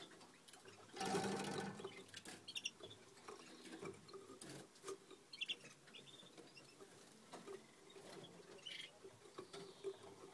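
Young goldfinch × canary hybrids (mules) in a cage: a few short high chirps, soft clicks and scratching of feet on perches, and a brief louder rustle about a second in.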